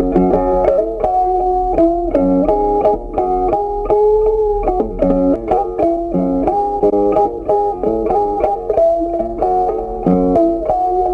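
Background music: a plucked guitar melody, with notes changing every fraction of a second.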